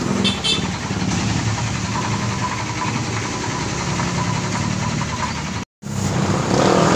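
A motor vehicle engine idling steadily, with a brief cut-out near the end.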